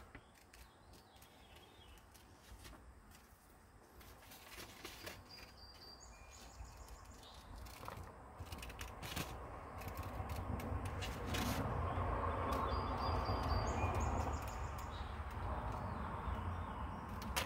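Scissors cutting through a paper template: repeated soft snips with paper rustling. Faint at first, louder in the second half.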